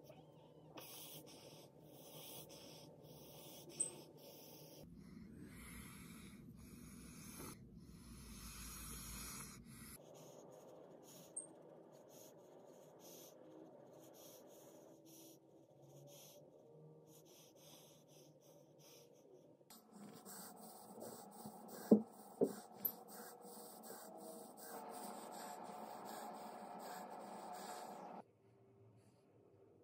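Faint rubbing and scratching of a makeup brush against skin, changing abruptly every few seconds, with a few sharp clicks, the loudest a quick cluster of three about two-thirds of the way through.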